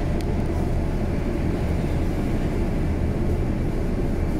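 Steady low rumble of a vehicle driving on a wet road, heard from inside the cabin.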